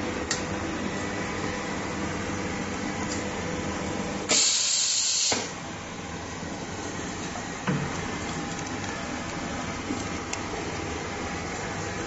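Hot bar machine's pneumatic press venting air: a loud burst of hiss lasting about a second, about four seconds in, over steady machine and room noise, with a few light clicks.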